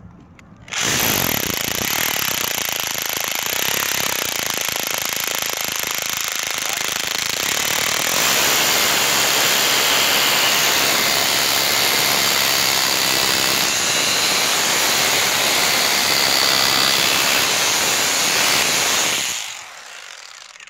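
Makita SDS rotary hammer drill running under load, driving a masonry bit into a pressure-treated wooden board on concrete. It starts about a second in, runs steadily, gets a little louder about eight seconds in, and stops about a second before the end.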